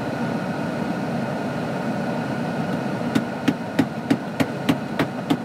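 Steady hiss and hum of an open phone-call recording during a pause, with a run of even, sharp clicks about three a second starting about halfway.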